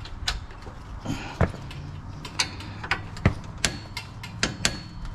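Irregular sharp metal clicks and light knocks, several a second, from hand tools and metal parts being handled during suspension reassembly.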